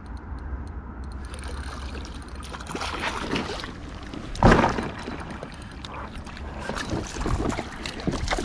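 Hooked perch splashing and thrashing at the water's surface beside an inflatable paddle board as it is reeled in, with one loud splash about halfway through and smaller splashes around it.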